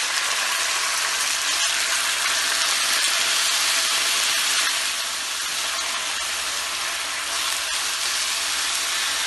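Boneless chicken pieces sizzling loudly in hot oil and minced garlic in a nonstick frying pan, starting abruptly as the chicken goes in and holding steady as it is stirred, easing slightly about halfway through.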